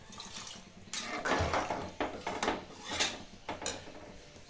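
A spatula stirring a watery curry in an aluminium pressure cooker: about six scraping, sloshing strokes against the pot, roughly two a second.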